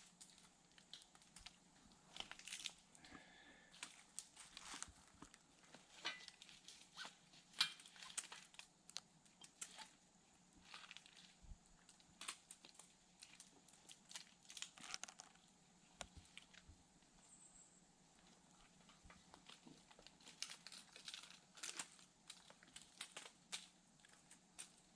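Faint, irregular rustling and crinkling broken by light clicks and taps, with a faint steady hum underneath.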